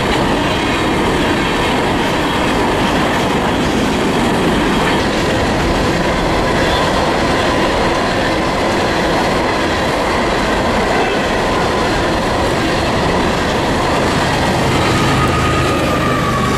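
Freight train of coal hopper cars rolling past at speed, a steady loud rumble and clatter of steel wheels on the rails. Near the end a diesel locomotive passes close, adding a low engine drone and a steady whine.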